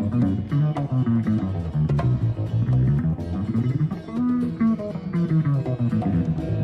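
Live jazz-fusion band music, with quick plucked guitar and bass lines to the fore.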